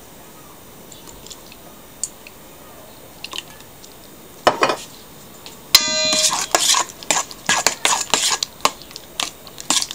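A fork beating an egg and cheese batter in a stainless steel mixing bowl, clinking rapidly against the metal at about three or four strokes a second. It starts about six seconds in with a sharp metallic strike that rings briefly. Before that there are only a few faint clicks.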